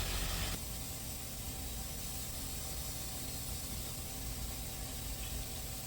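Steady hiss of a vacuum coolant refill tool drawing coolant back into a car's evacuated cooling system after a radiator replacement. A low rumble underneath cuts off about half a second in.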